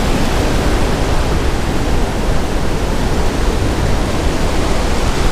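Ocean surf breaking and washing through shallow water, a steady loud rushing hiss.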